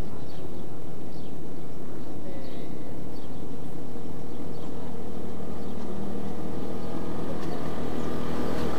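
A ride-on miniature railway locomotive approaching along the track, its motor a steady hum that grows louder as the train nears.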